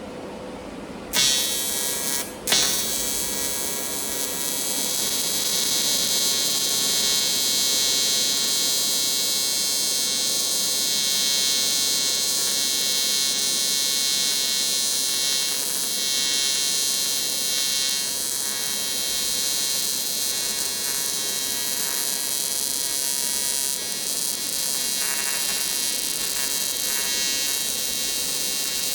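AC TIG welding arc on aluminum, buzzing steadily. The arc strikes about a second in, breaks off briefly, restarts, and then runs without a break.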